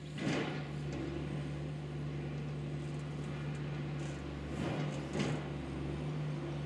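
Tracked demolition excavator's diesel engine running steadily, with crashes of breaking masonry and rubble just after the start and again about five seconds in.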